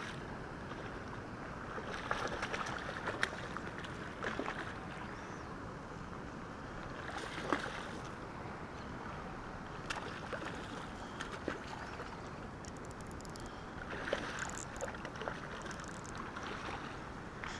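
Hooked fish thrashing and splashing at the water's surface as it is played on the line, in short bursts about two, seven and fourteen seconds in, over a steady rushing background.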